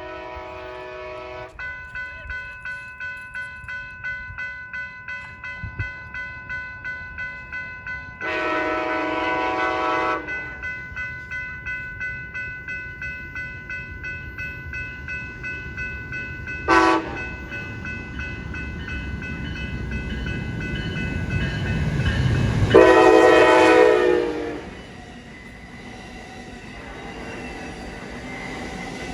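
A locomotive air horn sounds the grade-crossing signal of long, long, short, long over a crossing bell ringing about twice a second. A train's rumble builds toward the final long blast and goes on after it as the train passes.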